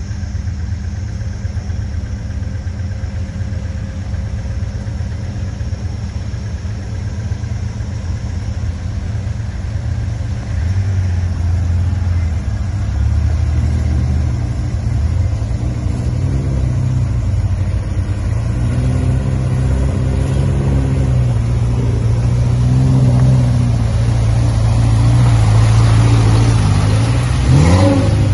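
Modified Suzuki Gypsy 4x4's engine running as it drives through shallow water, growing louder as it comes closer. Near the end it revs up and down.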